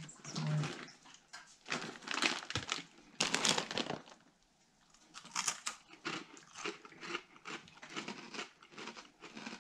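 A plastic snack bag crinkles as it is handled, then crisp crunching comes as dry scorched-rice crackers are bitten and chewed.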